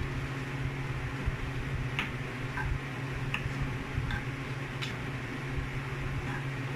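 Chicken pieces frying in melted margarine in a pan: a faint steady sizzle over a low hum, with a few sharp pops about two, three and a half and five seconds in.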